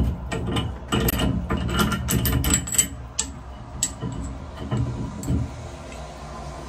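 A shower stem socket wrench turning a brass valve stem out of a two-handle Sayco shower valve: a quick run of metal clicks and scrapes for about three seconds, then a few more, sparser, as the stem comes free.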